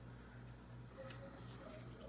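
Faint handling of a thin plastic cup and a wooden stir stick in a gloved hand, a few light clicks and scrapes about a second in, over a steady low hum.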